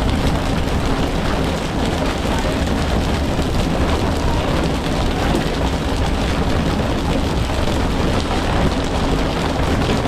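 Fishing boat's engine running steadily under a constant rain-like rushing of water.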